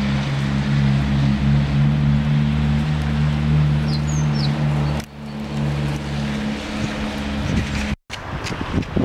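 Engine running steadily, a low hum over a wash of noise; a bird chirps a few times about four seconds in. The sound breaks off for a moment near the end.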